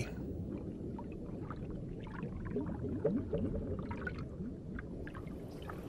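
A low, muffled underwater rumble with faint gurgles and scattered soft clicks.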